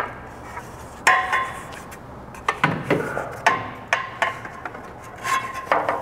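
A car's fan shroud being handled and worked into place around a radiator and engine fan: rubbing and scraping, with a string of sharp knocks and clinks as it bumps against the radiator and fan, some of them ringing briefly.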